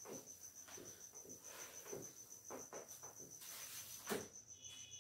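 Faint, steady insect chirring in an evenly pulsed high trill, cricket-like, with a few soft scuffs and a light knock about four seconds in.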